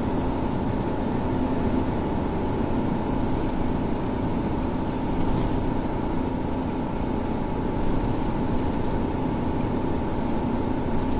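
Steady road and engine noise of a car cruising on an expressway, heard from inside the car: an even rush of tyre and wind noise with a faint steady hum.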